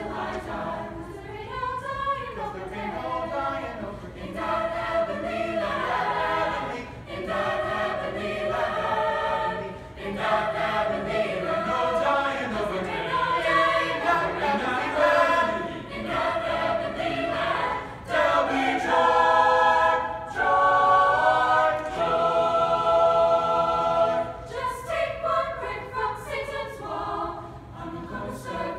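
Choir singing, with a stretch of loud held chords about two-thirds of the way through.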